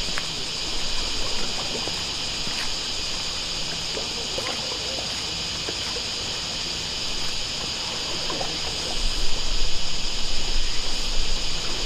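Small waves lapping and trickling against the shore, with scattered light splashes, over a steady high-pitched hiss.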